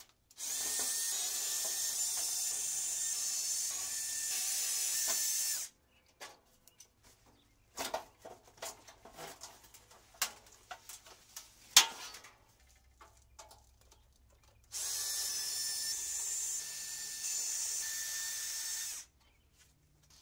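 Cordless drill running in two long steady runs, about five and four seconds, backing screws out of an air-conditioner condenser's top cap. Between the runs come scattered knocks and clatter as the cap is lifted off, one sharp knock the loudest of all.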